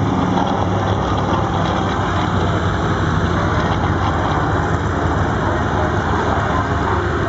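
TBM-3 Avenger's twin-row radial piston engine and propeller running in flight, a steady, loud, low drone that holds its level.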